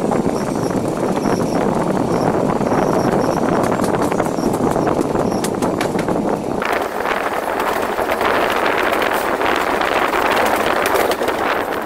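Passenger train running on rails, heard from an open window: a steady rumble and rush of air with clicks of the wheels over the track. A little past halfway the noise turns brighter and hissier.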